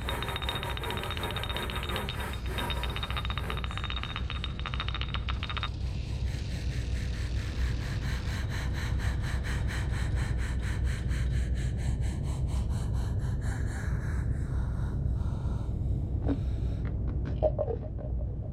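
Horror-film sound design: a low steady drone under a fast, evenly pulsing texture. A high thin tone drops out about six seconds in, a swell rises and falls past the middle, and a few short sharp sounds come near the end.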